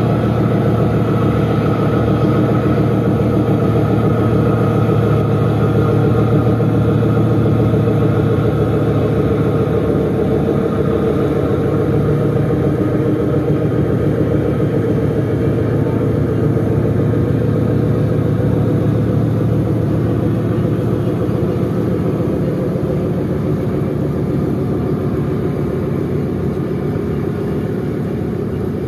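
Ship's diesel engines of the passenger vessel Barcelona III-A running while it moves past under way: a steady, deep drone with a fast, even throb. It eases off slightly over the last few seconds.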